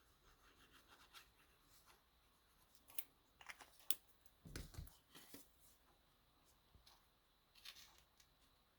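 Near silence broken by a few faint taps and rustles of cardstock being handled, a cluster of them a few seconds in and one more near the end.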